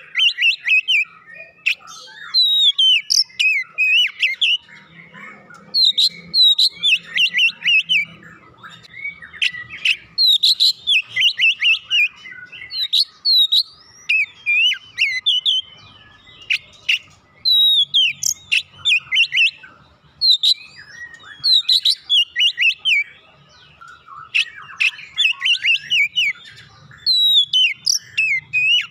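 Oriental magpie-robin in full, continuous song: rapid runs of loud whistled notes, many sweeping down in pitch, delivered in phrases with brief pauses between them.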